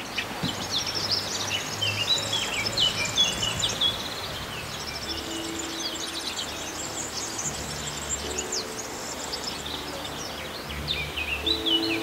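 Small songbirds chirping and twittering in quick trills and downsweeps, busiest in the first few seconds and again near the end, over a steady background hiss with some low steady tones underneath.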